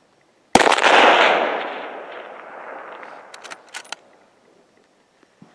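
A single long-range target rifle shot: a sharp crack about half a second in, whose echo rolls through the snowy forest and dies away over two seconds or more. A few sharp clicks follow about three seconds in.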